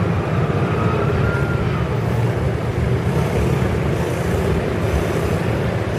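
Diesel-hauled passenger train pulling away: a steady low rumble of the locomotive and the coaches' wheels on the rails, with a faint thin whine near the start.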